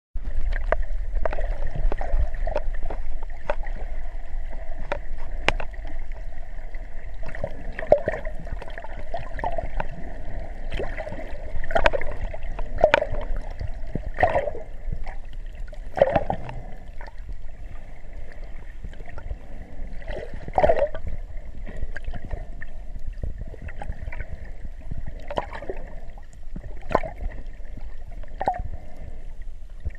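Underwater sound through a GoPro waterproof housing just below the surface: muffled water gurgling and sloshing, with irregular sharp clicks and pops over a steady hum.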